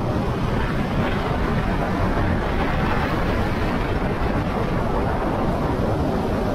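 Steady rush of wind across the microphone and road noise from a moving motorcycle, loud and even throughout.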